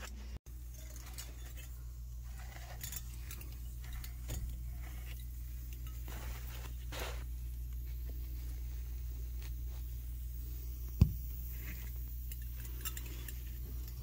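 Faint high hiss of R-410A refrigerant escaping from a leaking evaporator coil, under light metallic clinks and rustles of hands on the coil and a steady low hum. One sharp knock comes about eleven seconds in.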